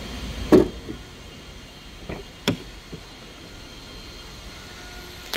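A 2018 Dacia Duster's fuel filler flap pushed shut with a sharp clack about half a second in, then a few lighter clicks and knocks as a rear door's handle and latch are worked and the door is opened.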